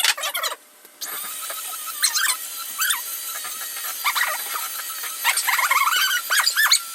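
Electric hand mixer running steadily, beating cheesecake batter, starting about a second in. High-pitched squeals come and go over it.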